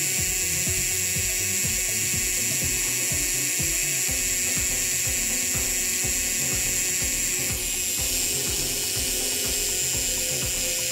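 Cordless portable air compressor running: a steady high motor whine over fast, even piston pulsing, the tone shifting slightly about two-thirds of the way through.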